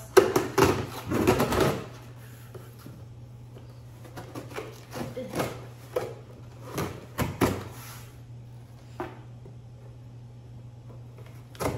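Cardboard shipping box being opened by hand: a blade slitting the packing tape, with the tape tearing and the cardboard scraping in a string of short noisy bursts, loudest in the first two seconds. A steady low hum runs underneath.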